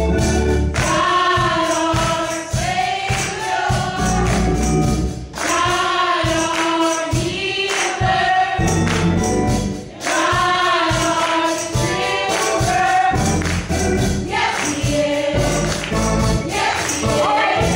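Gospel singing by a small group of female voices, a woman and girls singing into microphones, over a steady beat of percussion with bass.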